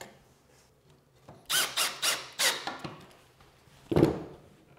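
Cordless drill boring pocket holes in pine trim through a Kreg jig: a quick run of short bursts of the bit cutting, each rising and falling in pitch, then a single loud thump near the end.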